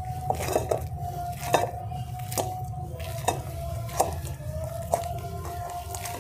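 Hands kneading spinach luchi dough in a stainless steel bowl: soft pressing and folding with irregular short knocks and taps against the steel, roughly one every half second to a second.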